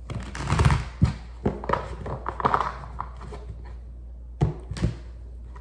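A deck of tarot cards being riffle-shuffled on a tabletop, with loud rustling riffles in the first half. Near the end come two sharp knocks as the deck is squared against the table.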